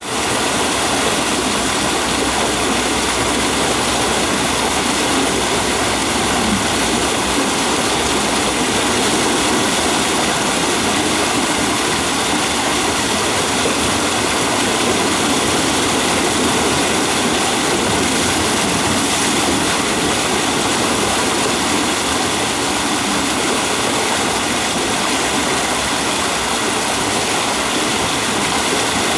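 Water spilling over a fish-ladder weir and churning into the pool below: a steady rush of falling water.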